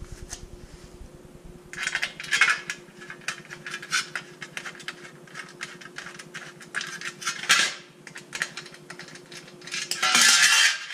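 A ratchet clicking in bursts as fasteners under a motorcycle's exhaust are undone. About ten seconds in, a metal underbody cover drops and clatters on the concrete floor; this is the loudest sound, and it is called incredibly loud. A faint steady hum runs underneath.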